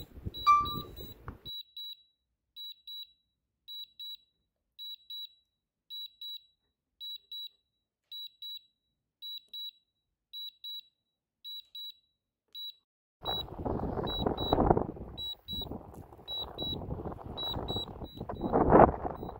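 Drone controller's warning beeps: pairs of short high beeps about once a second, the alarm for the drone's low battery and forced landing. About two-thirds of the way in, a loud rushing noise comes in over them.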